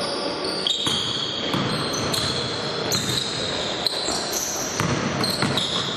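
Basketball play on a court: sneakers squeak repeatedly on the floor in short high-pitched squeals, and the ball bounces.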